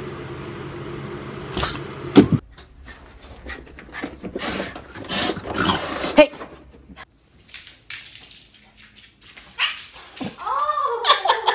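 A dog whimpering and yipping in short separate sounds, with a few sudden knocks; near the end come several rising-and-falling whines.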